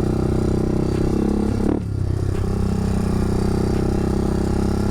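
ATV engine running under throttle while riding. Its pitch climbs briefly about a second and a half in, drops off with a short dip about two seconds in, then runs steadily again.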